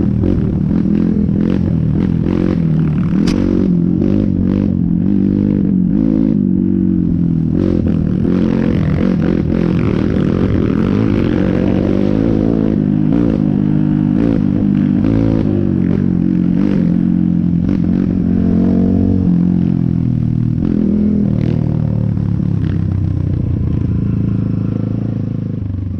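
Off-road dirt bike engine running under load on a rough trail, its revs rising and falling continually with the throttle, with frequent sharp knocks, scrapes and clattering from the bike over the rough ground and brush.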